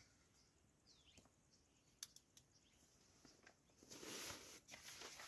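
Near silence with a few faint clicks, then from about four seconds in soft rustling of someone shifting about inside a small nylon dome tent.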